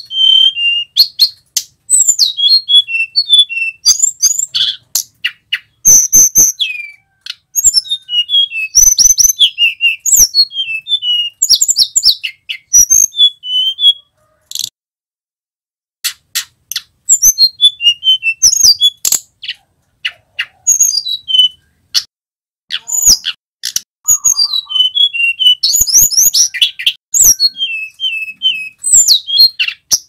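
Male hill blue flycatcher singing: rapid phrases of high, sweet, sliding whistles and warbles with sharp ticks between them, broken by a pause of about two seconds around the middle.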